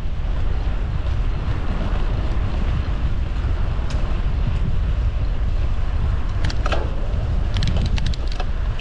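Wind buffeting the microphone of a camera riding along on a bicycle: a steady low rumble with road and tyre noise. A few short, sharp clicks come about six and a half to eight and a half seconds in.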